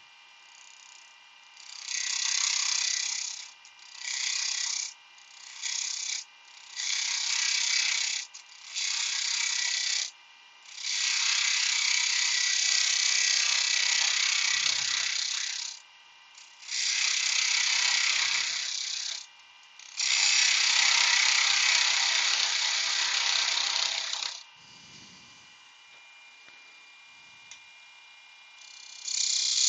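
Wood lathe with the spalted beech piece spinning, a tool or abrasive pressed against it in about eight rough, rasping bursts of one to four seconds each, with the lathe's faint hum in the gaps.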